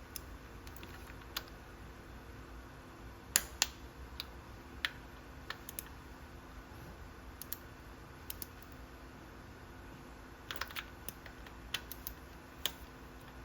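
Scattered sharp metallic clicks and taps from a torque wrench and hand tools as primary cover bolts are tightened down to about 10 N·m. A loud pair comes about three and a half seconds in, and a quick cluster comes near the ten-second mark.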